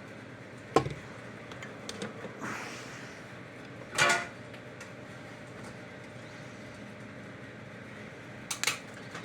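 Tools and small parts handled on a workbench: a sharp knock about a second in, a louder clatter around four seconds, and another short clatter near the end, over a steady background hum.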